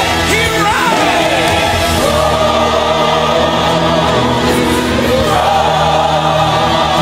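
Gospel song with a choir singing, loud and unbroken, with a sliding vocal line early on.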